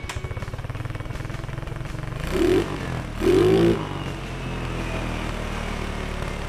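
Small scooter engine idling with a fast, even pulse through a muffler that has had a hole drilled straight through its internal chamber. The throttle is blipped twice, about two and three seconds in, each time rising in pitch and falling back to idle.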